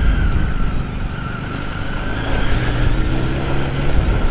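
BMW K1200GT's inline-four engine running at low speed while riding, under a low rumble of wind on the microphone; the engine note comes through more clearly about two seconds in.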